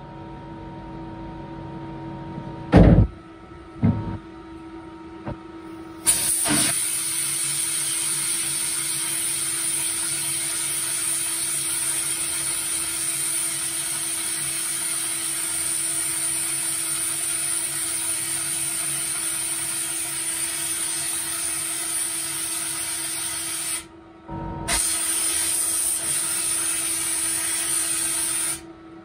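Compressed-air spray gun in a parts-washing cabinet hissing steadily as it blasts cleaning fluid onto a part, with a brief stop about 24 seconds in. Before it starts, a faint steady hum and a few knocks.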